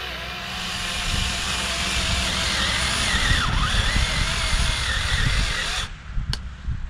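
Small chainsaw running under load as it cuts into a pumpkin, its pitch wavering and dipping as it bites. It grows louder over the first second and stops abruptly about six seconds in.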